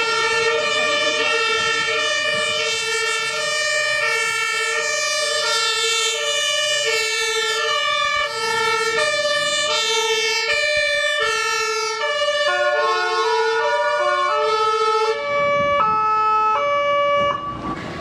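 German two-tone emergency siren (Martinshorn) on fire brigade vehicles on an emergency run, alternating between a low and a high tone about once a second. Toward the end a second two-tone siren overlaps out of step with the first, and both cut off suddenly just before the end.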